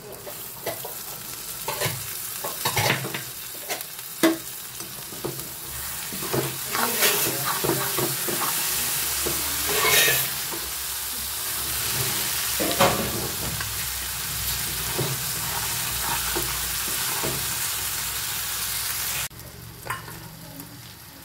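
Onion-tomato masala sizzling in a kadhai while a spatula stirs and scrapes it, with short clicks of the spatula against the pan. The sizzle cuts off suddenly near the end.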